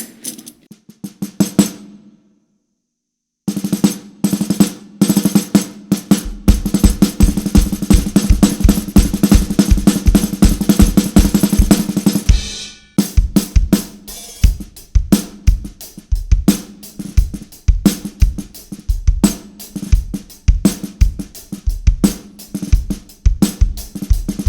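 Drum kit played with the snare fitted with a Big Fat Snare Drum Snare-Bourine Donut pad, its jingles jangling on the snare hits. A few strikes come first, then a short gap, then a run of fast snare strokes. The bass drum joins about six seconds in, and the playing settles into a steadier groove about twelve seconds in.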